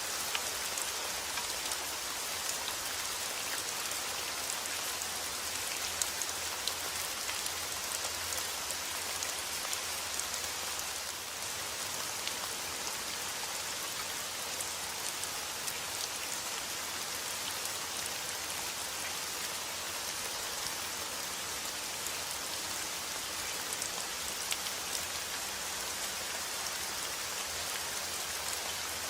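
Steady rain falling, an even hiss with many small drop ticks, some a little sharper than the rest.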